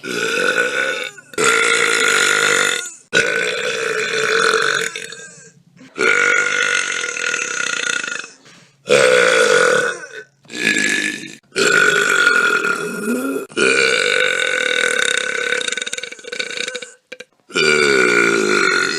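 A string of about ten long, loud burps from one person, each lasting one to three seconds. They are cut back to back with short gaps between them.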